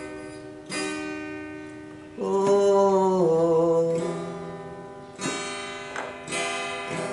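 Acoustic guitar strummed, each chord ringing out and fading before the next, about four strokes in all. A man's voice holds a long sung note from about two seconds in, sliding down near the middle.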